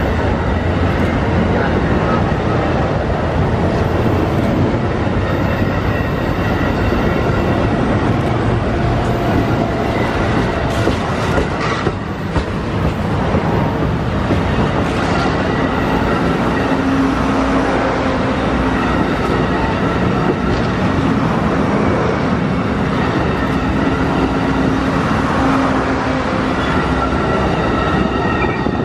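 Amtrak stainless-steel passenger cars rolling past close by: a loud, steady rumble of steel wheels on rail, with occasional clacks over the joints and faint high ringing tones.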